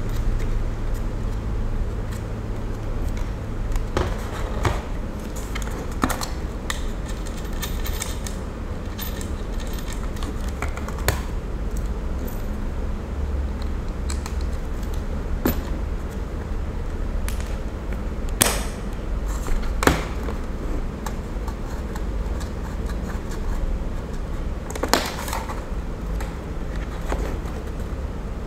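Irregular small clicks and taps of fibre-optic patch cable connectors and plastic LNB housings being handled and plugged, over a steady low hum.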